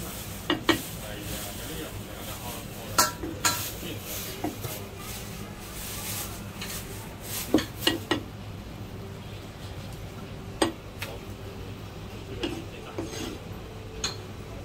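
Kitchen clatter: scattered sharp knocks and clinks from a cleaver on a plastic chopping board and a ladle against a steel pot, often in pairs a few seconds apart, over a steady low hum.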